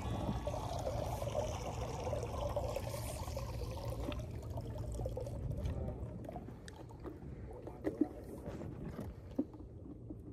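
Water trickling and lapping around a small rowboat, steady for the first four seconds, then quieter with a few light clicks and knocks.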